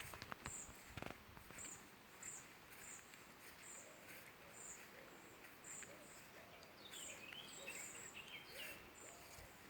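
Faint bird calls: a thin, high note repeated about every two-thirds of a second, joined by a short stretch of twittering near the end.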